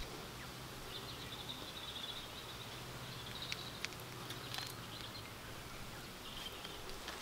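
Quiet outdoor background with a faint high chirring, and a few light ticks as a screwdriver works a rubber dust seal onto the back of a brake caliper.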